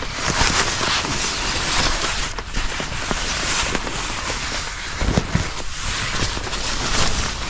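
Crinkly rustling and crackling of nylon camping gear (air mattress and sleeping bag) being handled, with a few soft thumps about five seconds in.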